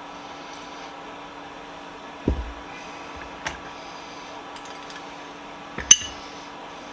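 Vise parts being handled out of a Deox C rust-remover bath: a dull thump a little over two seconds in, a light click, and a sharp knock near the end, over a steady hum.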